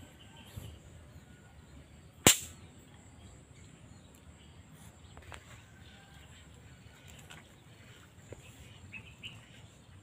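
A single sharp crack from a homemade hunting gun being handled or fired, about two seconds in, ringing briefly. Faint bird chirps and a steady faint high tone sit in the background.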